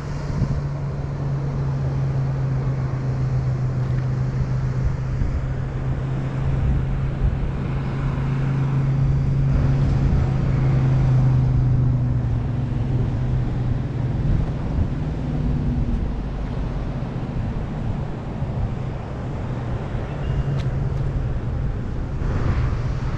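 A steady low mechanical hum at one constant pitch over a low rumble. The hum weakens about two-thirds of the way through.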